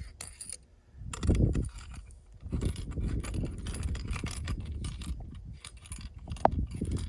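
Loose metal tool pieces rattling and clinking inside the hollow handle of a folding camp shovel as it is handled, a quick jingling run of small clicks after a dull knock about a second in.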